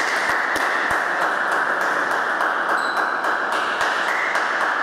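Table tennis ball clicking, a series of short sharp ticks from bounces and bat touches, over a steady rushing hiss.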